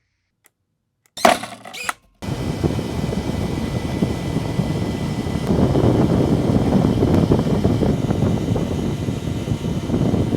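Jet engines of a radio-controlled SR-71 Blackbird model running: after a second of silence and a short burst, a loud steady rushing sound with a faint high whine starts abruptly about two seconds in and continues.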